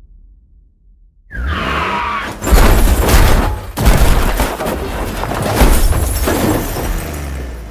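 Cinematic trailer-style designed sound effect: after a near-quiet second, a falling tone sweeps in, then heavy crashing hits with a deep low rumble, a second big hit about a second later, and dense crashing that carries on and eases off near the end.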